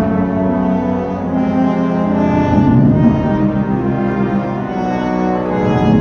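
Orchestral music with brass holding long, low sustained chords over strings.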